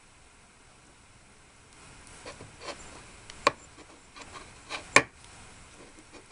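Small taps, clicks and scrapes of miniature cooking utensils, starting about two seconds in, with two sharp clicks about a second and a half apart.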